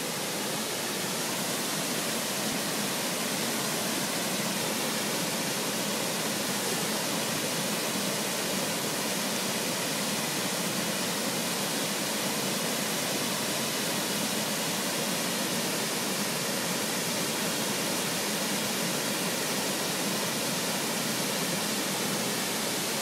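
Steady, unbroken rush of water pouring over a 15-foot waterfall.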